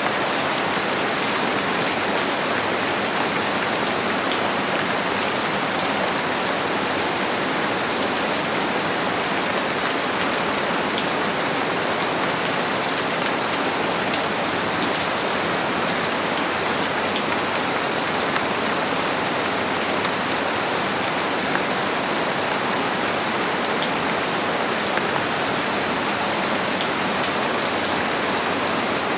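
Steady rain falling, a dense even patter of drops with fine high ticks and no thunder.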